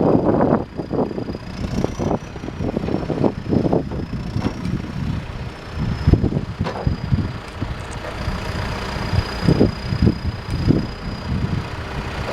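John Deere 310SJ backhoe's diesel engine running at idle, with irregular low buffeting surges over the steady rumble.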